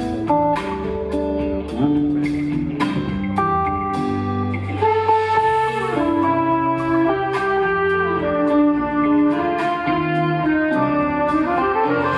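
Live jazz-fusion band playing: guitar and horns over bass and drums.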